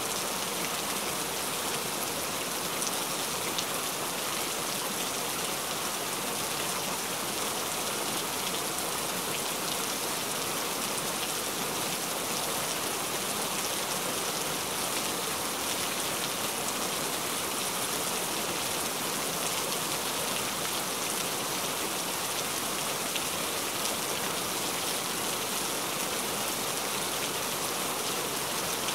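Steady rain: a dense, even patter of raindrops with no breaks or changes.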